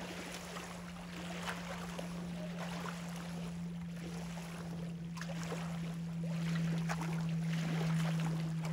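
Steady low drone of a motor, holding one pitch and slowly growing a little louder, with faint scattered clicks over it.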